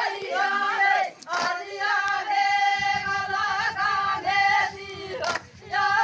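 Several voices singing an Adivasi folk song together in long held phrases over a steady drone note. A low pulsing accompaniment comes in about three seconds in.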